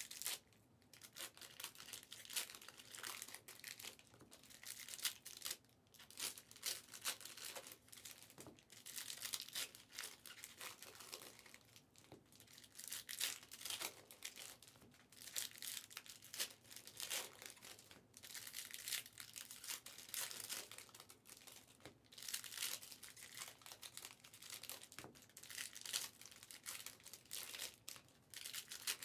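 Trading-card pack wrappers crinkling and tearing as packs of 2023 Panini Certified football cards are ripped open and handled, in irregular bursts of crackling.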